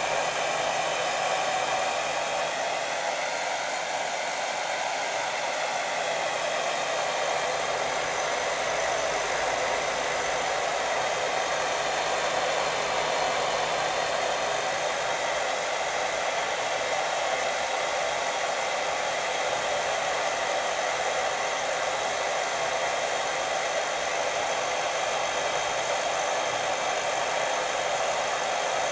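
Steady white-noise hiss, an even rushing sound with no breaks, played as a sleep sound for a baby.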